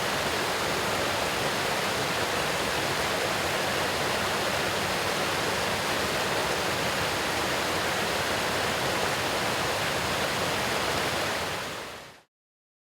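Uriwari Falls: a small waterfall's water rushing steadily. It fades out over about a second near the end and goes silent.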